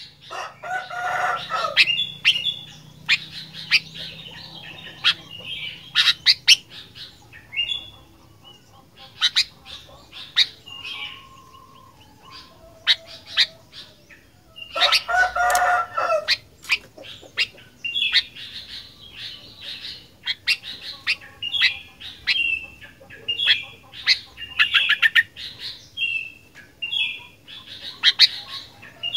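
Sooty-headed bulbul (kutilang) singing in a run of short chirps and whistled notes, with two louder, lower, harsher calls, one about a second in and one about halfway through.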